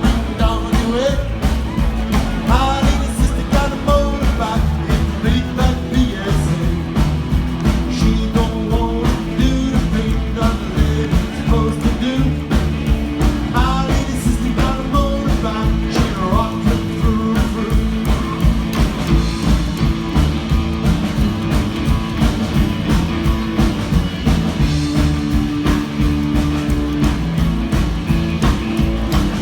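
Rock and roll band playing a song, with singing over a steady beat.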